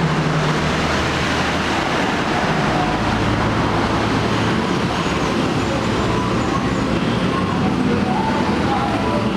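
2007 Honda XR 250 Tornado's single-cylinder four-stroke engine running steadily, heard through its exhaust.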